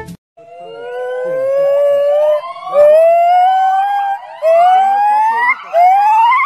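Male white-cheeked gibbon calling: a series of rising whooping notes, the first long and slowly climbing, each later one shorter, higher and sweeping up more steeply, and the whole run growing louder.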